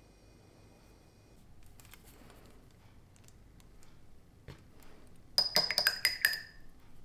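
Faint handling sounds, then a quick run of sharp clinks of a hard glass or ceramic object with a brief high ring, about five and a half seconds in.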